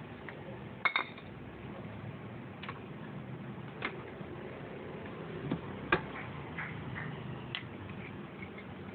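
About half a dozen sharp clinks and taps as the Honda Unicorn 150's metal air-feed pipe is handled and knocked against hard surfaces such as a vise and a ceramic bowl, the loudest about a second in and again near the middle, over low steady background noise.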